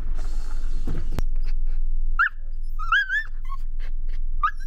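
Miniature schnauzer giving a few short, high-pitched barks, starting about two seconds in, with another near the end, held back rather than full-throated.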